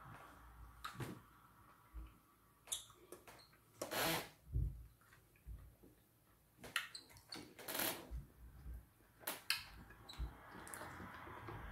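Eating noises as okra soup and fufu are eaten by hand: scattered wet mouth clicks and smacks, with two louder short sucking sounds about four and eight seconds in.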